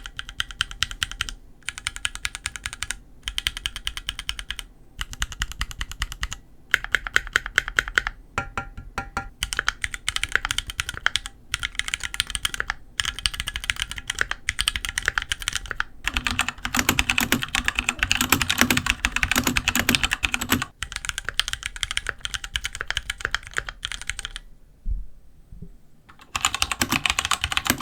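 Keychron Q1 mechanical keyboard with Gateron G Pro Brown switches being typed on: fast runs of keystroke clacks broken by short pauses, with a longer pause of about two seconds near the end.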